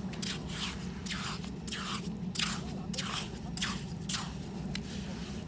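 Repeated short scraping, squelching strokes in wet tidal mud, about two a second: a small hand rake digging for Manila clams.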